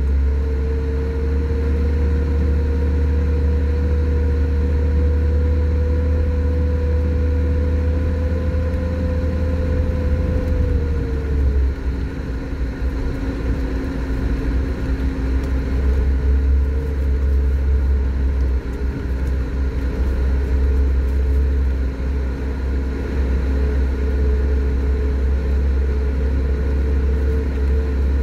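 Lada Niva being driven slowly over packed snow, heard from inside the cabin: a low engine drone with a steady whine on top. The whine sinks and fades about eleven seconds in, then returns a little lower.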